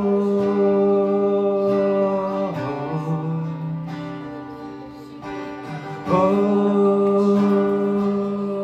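Worship music of long held notes: one fades to a lower note, then a new note swells in about six seconds in.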